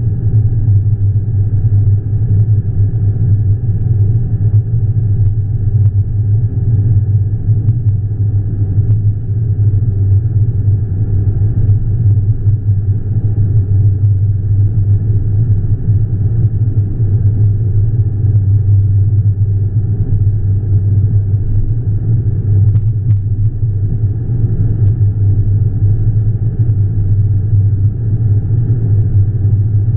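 Steady low rumble of road and engine noise inside a car's cabin while cruising at highway speed.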